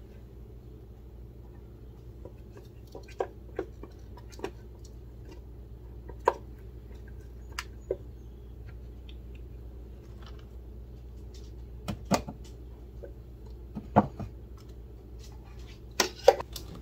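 A silicone spatula scraping thick dip out of a blender jar, with a dozen or so scattered short clicks and knocks as spatula and jar tap together, over a steady low hum.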